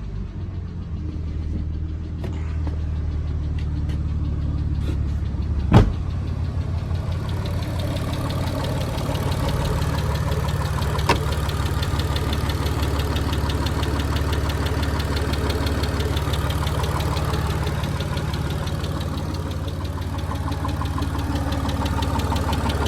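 Mitsubishi Legnum engine idling steadily, with a fast, even ticking from noisy valve lifters. One sharp click about six seconds in.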